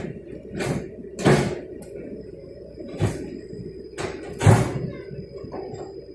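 Four dull knocks or thuds at irregular intervals over a steady low rumble.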